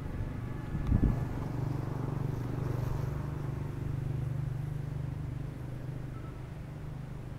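Road traffic crossing a level crossing: motorcycle and scooter engines running steadily as they pass over the tracks, with a low thump about a second in.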